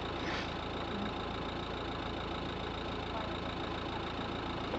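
Steady hum of an engine idling, unchanging throughout.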